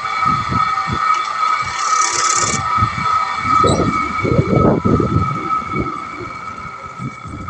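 Wood lathe running with a steady whine while a wooden plate blank is turned on it, with irregular scraping and knocks from working the spinning wood, busiest a few seconds in. The sound tapers off near the end.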